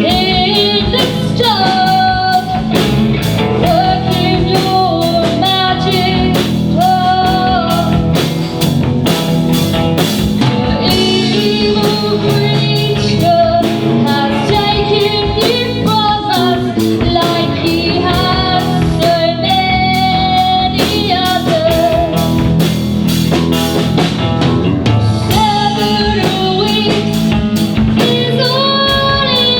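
A rock band playing a song live: a singer over guitar, bass and drum kit, with the drums beating at a steady pace.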